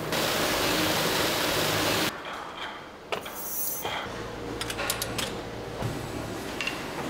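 Green wheat-straw plastic granules pouring into a steel hopper tray, a dense rushing hiss that cuts off about two seconds in. After that come a few sharp metallic clicks and knocks from tools on an injection mould over a low, steady machine hum.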